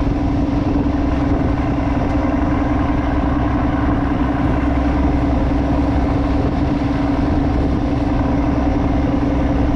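Crab fishing boat's engine running steadily, a constant hum with one strong steady tone over a low rumble.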